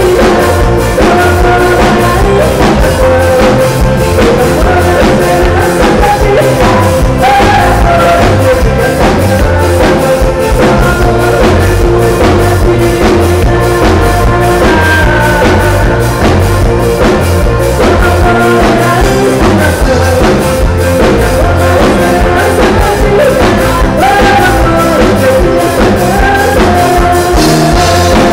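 Live sertanejo band music led by a viola caipira, with drums keeping a steady beat and a bass line underneath.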